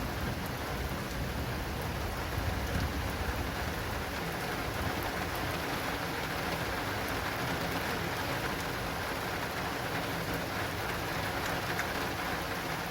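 Steady heavy rain drumming on an acrylic rain awning, with scattered sharp ticks of single drops over a continuous hiss.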